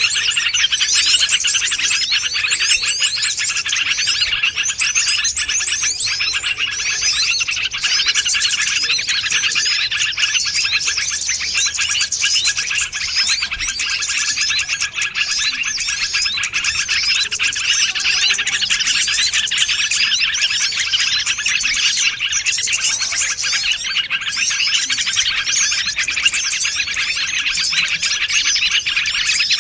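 Dense, unbroken chorus of many small birds chirping and twittering rapidly over one another: a bird-lure (pikat) track made to draw wild small birds in.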